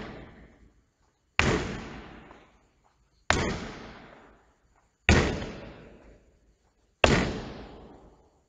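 Netball thrown against a wall in chest passes, hitting it four times about every two seconds. Each bang echoes and dies away in the large hall.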